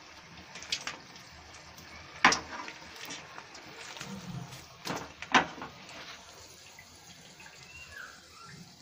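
Hot oil sizzling around fried chilli bajji as they are scooped out with a perforated metal ladle, with several sharp metal clinks of the ladle against the aluminium pot and mesh strainer, the loudest in the middle. The sizzling dies down near the end.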